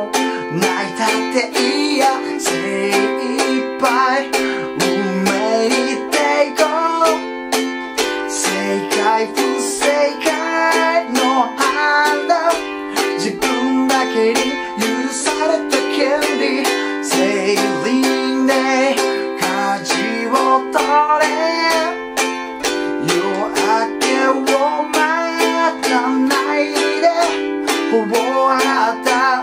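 A man singing in Japanese while strumming a small ukulele in a steady rhythm through the chords F, G7 and Am.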